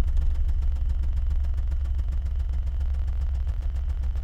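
MACH Audio sealed car subwoofers playing a steady, very deep bass test tone, with the car door open.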